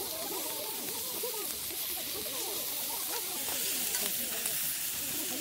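Beef sirloin and zucchini sizzling in a pan over a campfire as mushrooms go in and tongs move the food: a steady hiss with many short, wavering squeaky tones through it.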